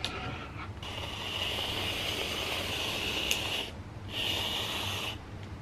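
Aerosol can of chocolate whipped cream spraying: a long hiss of about three seconds, a short break, then a second shorter hiss of about a second.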